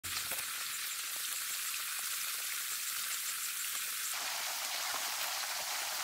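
A steady, rain-like hiss with fine, pattering ticks. About four seconds in it fills in lower and its tone shifts slightly.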